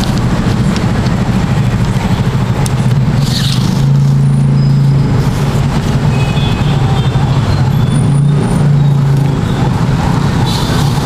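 A steady low engine hum, swelling a little twice.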